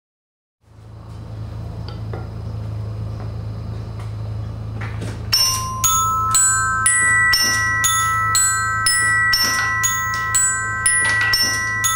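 Bearings Glocken, an instrument played by steel ball bearings dropping onto rows of tuned bars, ringing out bell-like glockenspiel notes that start about five seconds in and come two or three a second, each note ringing on. Under it a steady low hum runs from about half a second in.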